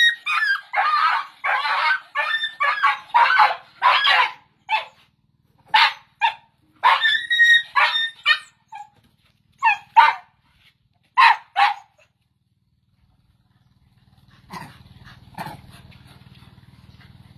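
Dog barking and yipping in quick, short bursts during rough play, stopping about twelve seconds in. A faint low hum comes in near the end.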